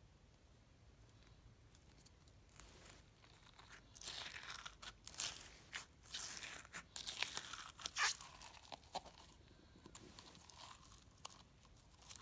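Foam-bead slime (floam) crackling and popping as it is squeezed and worked out of a glass jar: a run of crunchy crackles starting about four seconds in and dying down after about nine seconds.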